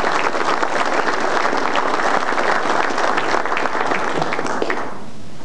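Audience applauding, then dying away about five seconds in.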